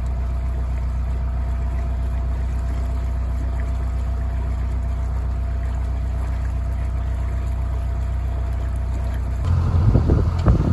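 Widebeam canal boat's diesel engine running steadily at cruising speed, an even low hum. About nine and a half seconds in, wind starts buffeting the microphone.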